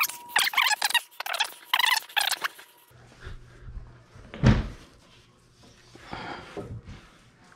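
A dishwasher being pulled out of its cabinet opening: one heavy thunk about four and a half seconds in, followed by a few lighter knocks and scrapes.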